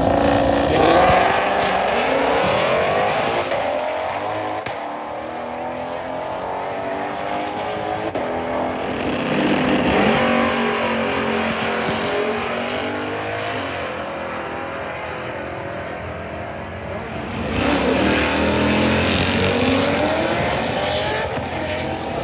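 Drag-racing cars launching hard off the starting line, their engines climbing in pitch through the gears as they accelerate away down the strip. Three launches: at the start, about nine seconds in, and about seventeen seconds in.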